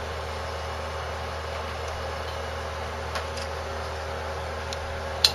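Steady electrical hum with room noise, broken by a few faint clicks and one sharper click near the end, from small parts being handled.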